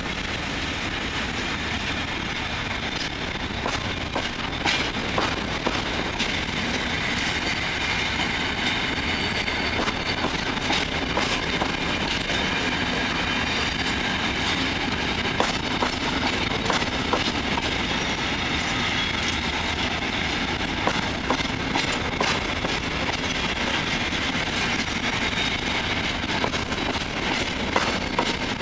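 Covered freight wagons of a long freight train rolling past at low speed, wheels rumbling and clicking over rail joints, with a high wheel squeal in the background.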